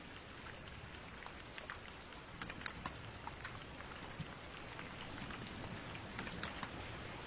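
Rain falling: a steady hiss with many scattered sharp drop ticks, growing slightly louder toward the end.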